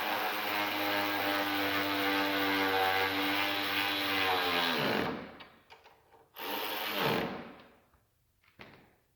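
Electric drill running nuts down onto bolts: one steady run of about five seconds that winds down in pitch as it stops, then a second short burst about a second long that also spins down.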